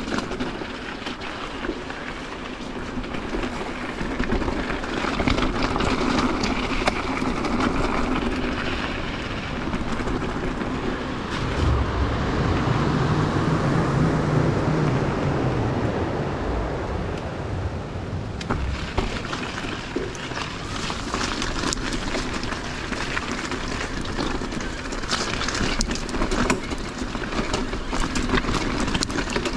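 E-mountain bike riding over a rough, rocky track: a continuous rumble and rattle of tyres and frame with many small knocks. A low hum comes in for a few seconds near the middle.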